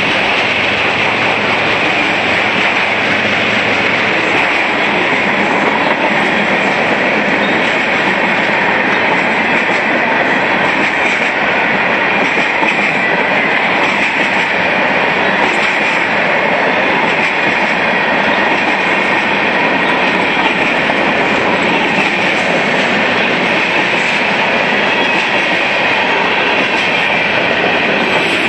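Freight cars of a Union Pacific mixed freight train rolling past close by: a loud, steady noise of steel wheels running on the rails.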